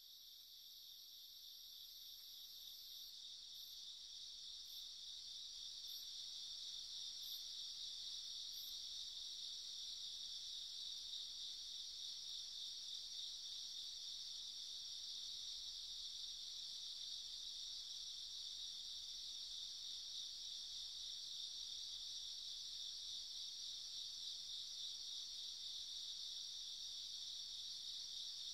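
Chorus of crickets, a dense steady high trill that fades in over the first several seconds and then holds even. A faint, very high thin tone breaks into a few short pips near the start.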